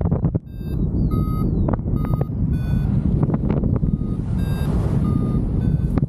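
Wind buffeting the microphone in flight, with a paragliding variometer's short electronic beeps repeating over it at changing pitches. Beeps like these are typical of a vario signalling that the glider is climbing.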